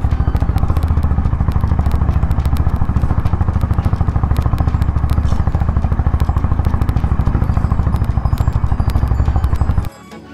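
Honda H'ness CB350's single-cylinder engine running with a steady, rapid, even thump as the motorcycle is ridden along a dirt road. The engine sound cuts off suddenly near the end.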